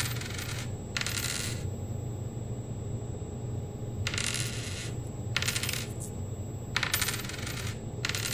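Short bursts of jingling, about six of them at irregular intervals, over a steady low hum. They come from a sound sample played in a live soundscape.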